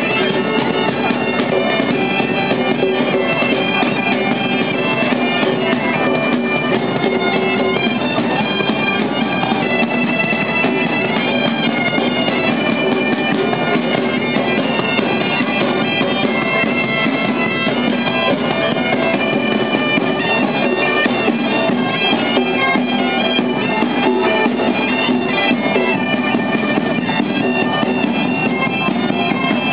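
Several bagpipes playing a tune together over their steady drones, with drums beating beneath.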